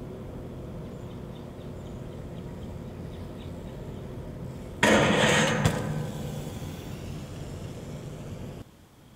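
A BMX bike and its rider come down hard onto concrete stairs. A loud crash about five seconds in clatters away over about a second, with a sharp knock just after, over a steady hum.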